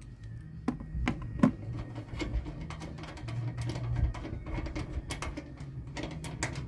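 A 12 mm socket wrench working a bonnet hinge bolt loose: irregular light metal clicks and knocks, several a second, with a few louder taps about a second in.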